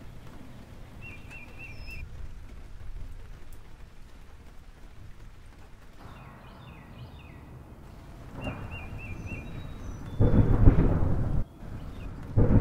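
Birds chirping in short repeated trills over a low rumble, then loud rolling thunder with a steady rushing noise, about ten seconds in and again near the end.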